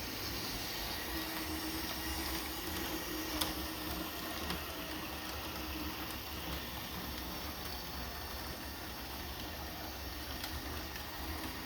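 Motorised Lego train running along its plastic track: a steady whir with a faint hum that fades out about six seconds in, and a single sharp click about three and a half seconds in.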